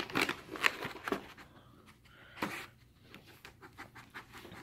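Dogs nosing through a cardboard subscription box of plastic-wrapped treats and toys: scattered rustling and light knocks, the loudest within the first second and another about two and a half seconds in, then only faint small rustles.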